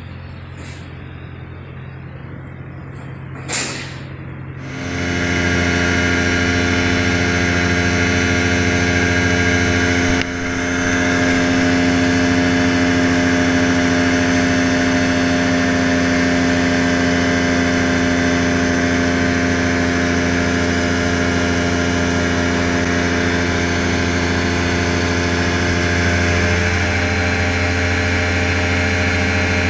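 Rans S12 ultralight's engine running at low idle, then, after a cut about five seconds in, a loud steady engine drone at flight power with a constant hiss of rushing air.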